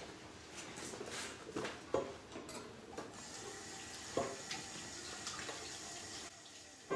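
Gas hissing through an anaesthesia face mask and breathing circuit as the reservoir bag is squeezed by hand to ventilate an anaesthetised patient, with a few short knocks of handling.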